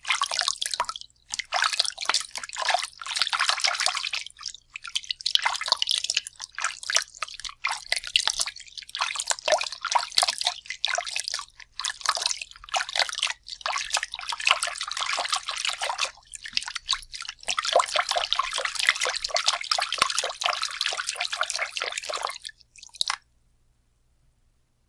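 Water being moved about and splashed, in irregular bursts of small splashes, drips and dribbles with brief pauses between them. It stops abruptly near the end.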